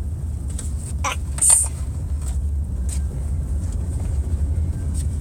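Steady low rumble of a car in motion, heard from inside the cabin, with a short vocal sound about a second in.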